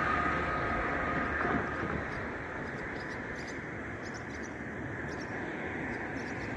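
Road traffic: a passing vehicle fades away over the first couple of seconds, leaving a steady distant traffic hum with a few faint, short high chirps.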